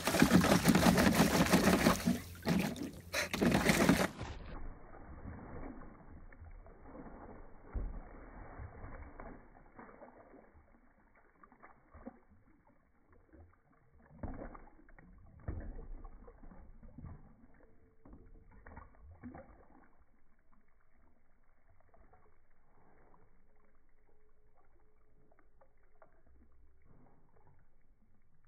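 Dog splashing and pawing at the water in a plastic kiddie pool: loud splashing for about four seconds, then the sound turns slowed-down and muffled, with a few spaced-out dull sloshes that fade to faint.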